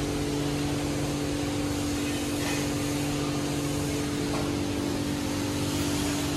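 Self-service car-wash machinery running: a steady hum with one constant tone over an even hiss.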